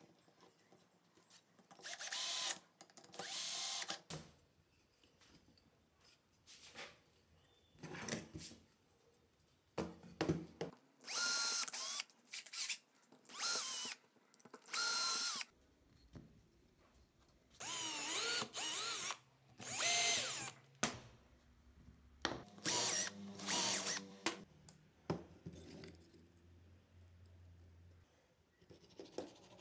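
Electric drill run in short bursts into wood, about ten times, its motor whine rising as the trigger is squeezed and falling as it is let go.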